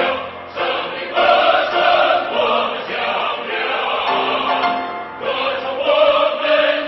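Background music: choral singing in long held chords, phrase by phrase.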